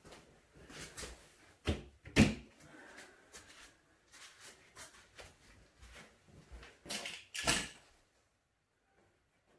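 A person moving about on foam floor mats: soft footsteps and handling knocks, with a sharp knock about two seconds in and a couple more near the end.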